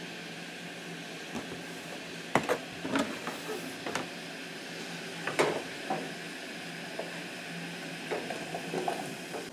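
A knife clacking and knocking a few times against a plastic cutting board as diced green bell pepper is handled, over a steady background hiss. Near the end, a run of lighter clatters as the pepper pieces are tipped off the board into a saucepan.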